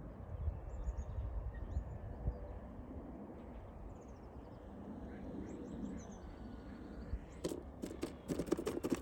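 Wind buffeting the microphone as a gusty low rumble, with faint bird chirps now and then. Near the end comes a quick run of clicks and knocks.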